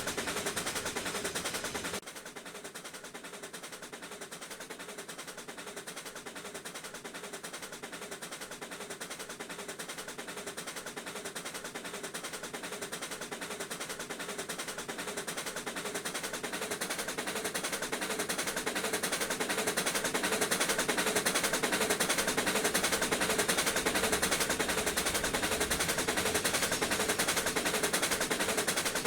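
Two Pennsylvania Railroad steam locomotives, No. 7002 and No. 1223, working as a doubleheader with rapid, overlapping exhaust chuffs. After a sudden drop about two seconds in, the chuffing grows steadily louder as the engines come closer.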